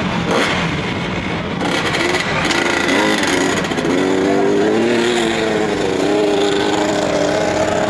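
A small motorcycle or scooter engine running, its pitch rising and falling gently from about two seconds in.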